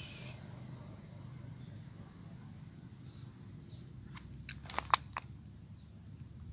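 Footsteps crunching on dry coral rubble: a quick cluster of sharp clicks and crackles about four seconds in, the loudest just before five seconds, over a low steady rumble.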